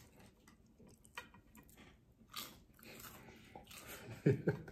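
A person chewing crispy fried chicken, with soft crunches and small wet mouth clicks. A brief louder burst comes near the end.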